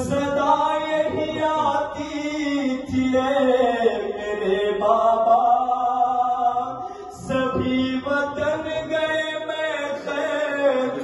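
A man's solo voice chanting an Urdu noha (Shia lament) into a microphone, in long, slowly bending held notes. There is a brief break for breath about seven seconds in.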